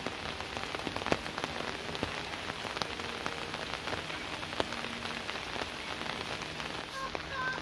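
Steady rain falling, an even hiss dotted with frequent sharp ticks of individual drops striking hard surfaces.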